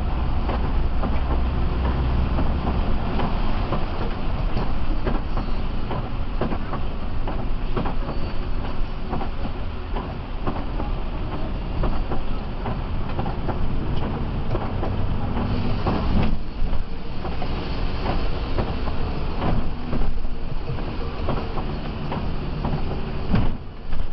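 Cabin noise inside a moving Mercedes-Benz OH 1526 bus on a wet road: the rear-mounted diesel engine runs steadily under tyre and road noise, with frequent clicks and rattles from the bodywork.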